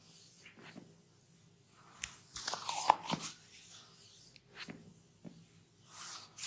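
Close-miked massage sounds: hands rubbing and scratching, with a few short crunchy clicks. The loudest is one sharp crack about three seconds in.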